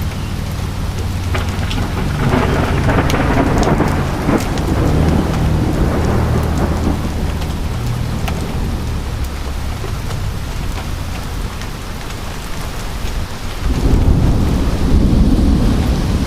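Rolling thunder rumbling over steady rain. The rumble swells a couple of seconds in and again near the end.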